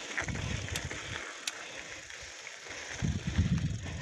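Knobby-tyred mountain bike rolling along a gravel dirt road, with wind buffeting the microphone in gusts, strongest near the end, and a couple of sharp clicks.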